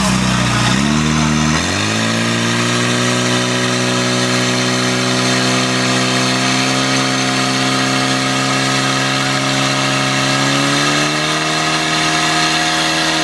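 Portable fire pump's engine revving up in two steps, about half a second and a second and a half in, then held at high, steady revs, rising slightly again near the end. The pump is running at full throttle to force water through the hoses to the nozzles.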